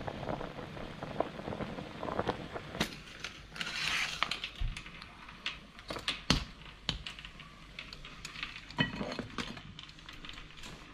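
Water boiling hard in a stainless steel pot, then scattered sharp clinks and knocks of metal tongs against the pot as a boiled spider crab is lifted out.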